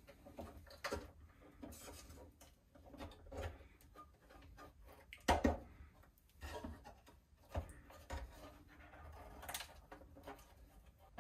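Handling noise as the chassis and circuit board of a Peavey Standard Mark III amplifier head are slid and lifted out of the cabinet: scattered knocks and rubbing, the loudest knock about five seconds in.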